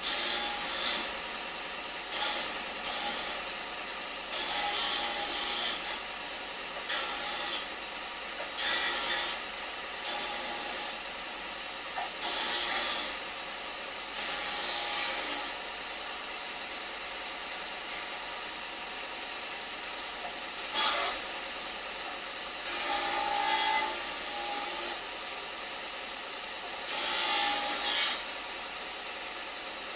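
Tool working wood in short irregular bursts, about a dozen, each lasting from half a second to two seconds, over a steady background hum.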